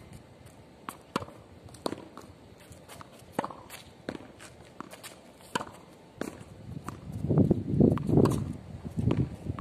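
Footsteps and sharp shoe scuffs of a tennis player moving about a hard outdoor court, as irregular clicks. From about seven seconds in, a louder, muffled noise close to the microphone.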